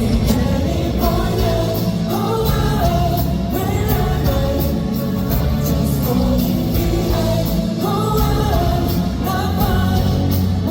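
Live pop song: a singer's amplified vocal over full band backing, through a concert sound system.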